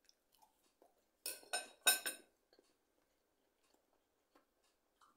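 Cutlery and dishware clinking at a meal: a quick run of four sharp clinks with a short ring, a little over a second in.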